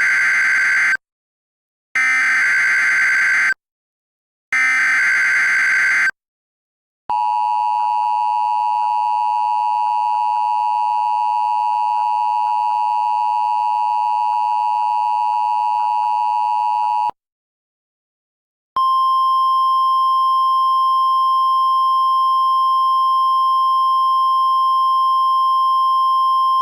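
Emergency Alert System tones: three short bursts of warbling digital header data about a second apart, then a steady two-tone attention signal for about ten seconds. After a brief gap comes a steady single-pitch weather-radio warning tone.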